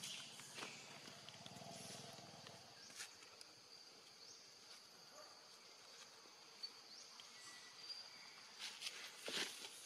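Quiet woodland ambience: a faint steady high insect drone with a few short high chirps. A low hum fades out about three seconds in, and a few soft sharp clicks or rustles come near the end.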